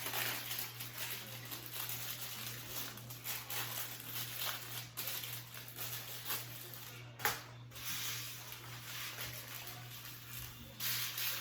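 Rustling and crinkling of packaging being handled, with a sharper crackle about seven seconds in, over a faint steady hum.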